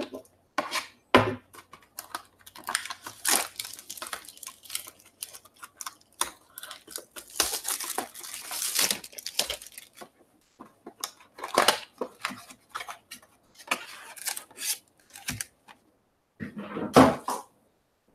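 A cardboard trading-card mini box being handled and opened: scrapes and clicks, with a longer tearing rustle about halfway through as the box is torn open and the foil packs are pulled out. About a second before the end, a heavier thud as the stack of packs is set down on the wooden table.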